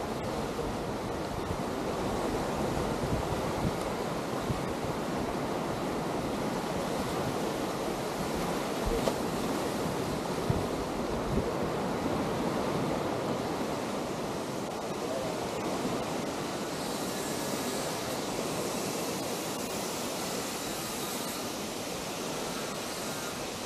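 Atlantic surf washing on a sand beach, a steady rushing noise, with wind buffeting the microphone through the first half. The wash grows hissier about two-thirds of the way in.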